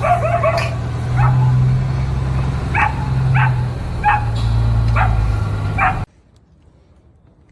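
A dog giving about eight short, high yips or barks at uneven intervals over a steady low hum. Everything cuts off suddenly about six seconds in.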